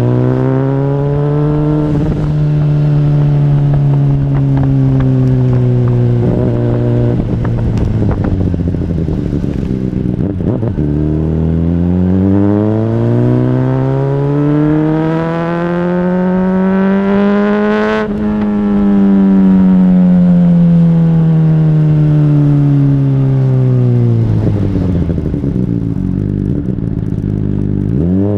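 Honda CBR600RR inline-four engine running through an aftermarket exhaust while riding. It holds steady revs, dips about eleven seconds in, climbs for about six seconds to a peak with a sharp drop as it shifts up, then winds down steadily as the bike slows, and revs up again quickly near the end.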